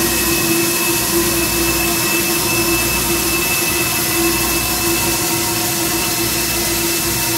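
Norfolk and Western Class J 611 steam locomotive hissing steam loudly while its brass bell rings steadily, the bell's ringing tone swelling roughly once a second over the hiss.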